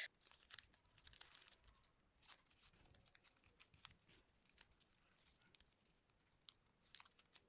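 Near silence with faint, scattered light clicks and rustles of folded paper being handled.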